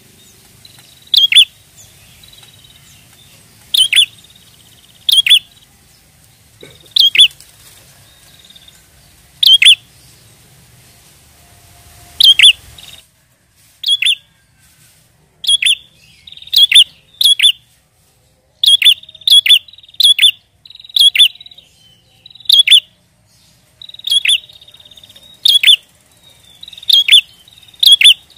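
Prinia (prenjak) calling: loud, sharp chirps, often in quick pairs, repeated every second or two, with a softer buzzy trill between some of them.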